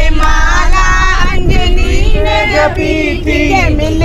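Several passengers, women's voices among them, singing a devotional kirtan bhajan together, over the low rumble of the moving vehicle inside its cabin.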